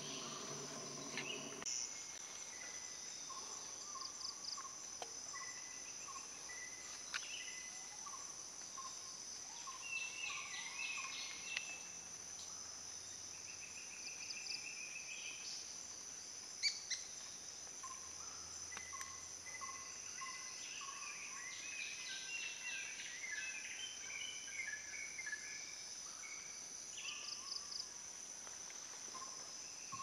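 Tropical forest ambience: a steady high-pitched insect drone under many small bird calls (short chirps, trills and whistled notes). A low hum stops about two seconds in, and a single sharp click comes just past halfway.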